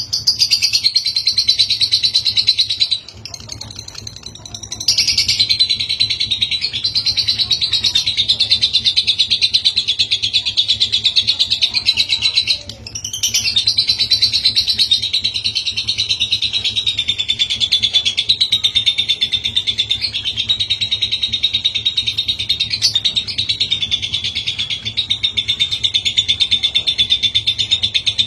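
A lovebird's ngekek: a long, fast, high-pitched chattering trill. It breaks off for about two seconds near the start and for a moment about halfway.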